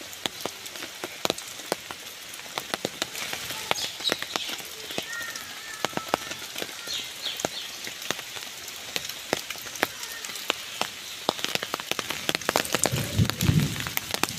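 Steady rain falling on wet leaf litter and tree roots, with many sharp ticks of single drops landing close by. A low rumble comes in about two seconds before the end.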